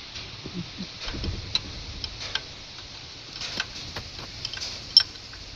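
Scattered light clicks and taps of tools and metal parts being handled, irregular rather than a steady rhythm, with one sharper click about five seconds in.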